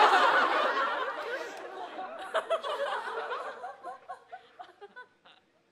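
Studio audience laughing at a punchline, loudest at the start and fading away over about five seconds.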